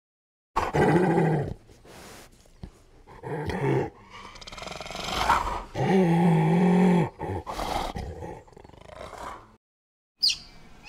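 An animal calling: a series of loud, low, pitched calls, the longest held for about a second, then two short high-pitched cries near the end.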